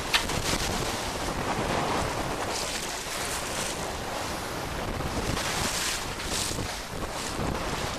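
Wind buffeting the microphone over choppy water rushing and splashing along the hull of a Maxi 95 sailboat under sail, rising and falling in surges. A single sharp knock just after the start.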